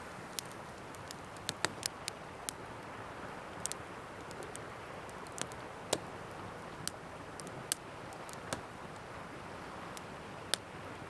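Pine fatwood campfire crackling: sharp pops and snaps at irregular intervals, over a steady hiss of ocean surf.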